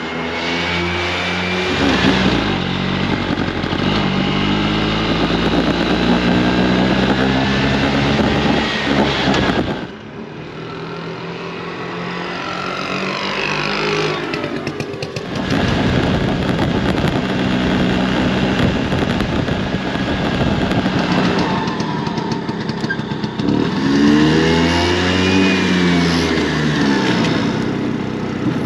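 Vespa scooter engine running while riding, its pitch rising and falling with the throttle. The sound drops out sharply about ten seconds in and picks up again, and near the end the engine revs up and eases off.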